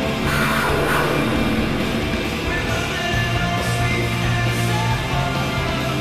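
Hard rock goal song with heavy guitars and shouted vocals, played as an arena goal celebration.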